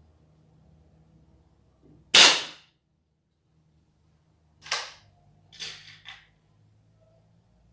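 B19S break-barrel air rifle firing once, a sharp crack about two seconds in. A few seconds later the barrel is broken open to cock the rifle: one sharp clack, then two lighter clicks.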